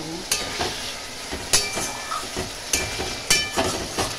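Metal spatula stirring spice paste and potato pieces frying in oil in an aluminium kadai: a steady sizzle broken by several sharp clangs as the spatula strikes the pan, each ringing briefly.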